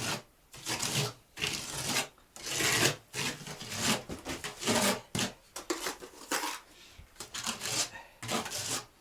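Spatula spreading and texturing plaster on a fireplace surround: a run of short rasping scrapes, about one a second.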